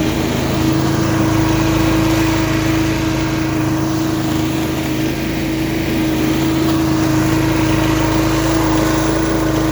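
Billy Goat LB50Q walk-behind leaf vacuum running steadily at working speed, its small engine and fan giving a constant hum with one strong steady tone.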